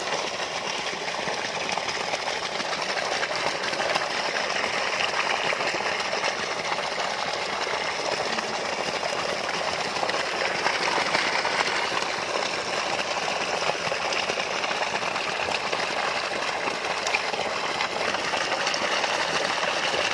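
Water in a biofloc fish tank churning and splashing steadily at the surface, a continuous hissing rush.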